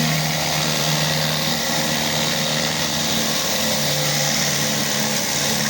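Pressure washer engine running steadily, with a constant hiss of spray over it.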